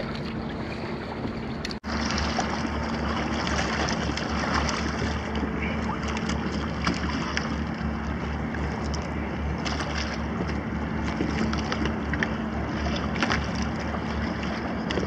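Water sloshing against the hulls of a Hobie sailing kayak moving through choppy water, with wind on the microphone and a steady low hum underneath. The sound briefly drops out about two seconds in.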